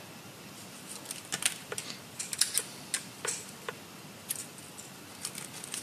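Irregular light clicks and clacks as a 1/24-scale SCX24 RC crawler chassis and small tools are handled and set down on a workbench.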